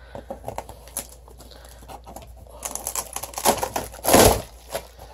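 Large cardboard shipping boxes being handled by hand: rustling, scraping and light tapping as a box inside another box is worked at, with a louder scrape about four seconds in.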